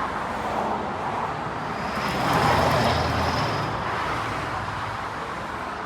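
Road traffic noise with a motor vehicle passing by, swelling to its loudest about two to three seconds in and then fading.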